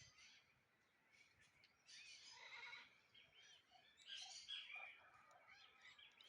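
Faint birdsong: several small birds chirping and trilling in short clusters, busiest about two seconds in and again about four seconds in.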